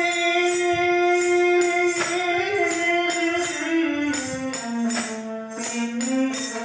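Bengali devotional folk music: a keyboard melody held in long notes, stepping down about four seconds in, with small brass hand cymbals (manjira) clashing in a steady rhythm.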